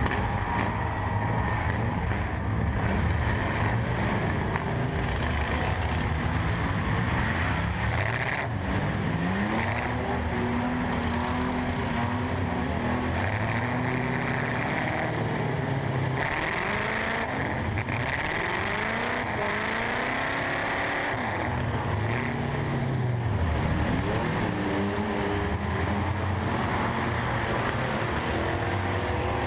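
Eight-cylinder derby truck engines revving, heard from inside the cab, their pitch rising and falling again and again with several engines overlapping.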